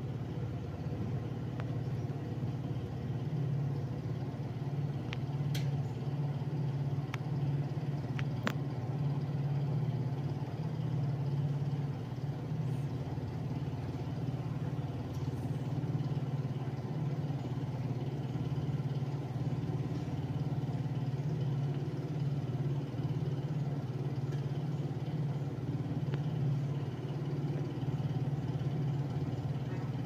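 National F-EY149 140 cm industrial ceiling fan running: a steady low motor hum with the rush of the blades. It spins slowly, which the owner puts down to a weakened capacitor.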